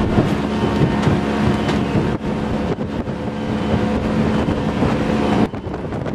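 Motorboat engine running steadily at speed, a constant hum over the rush of water and wake along the hull. The sound changes abruptly near the end.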